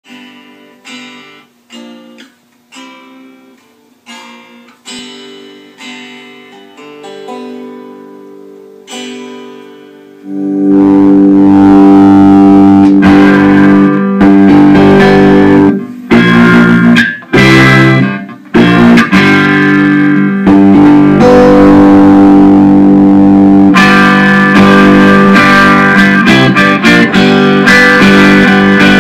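Homemade cigar box guitar being played: single picked notes that ring and fade, then about ten seconds in much louder, fuller playing with notes held and run together.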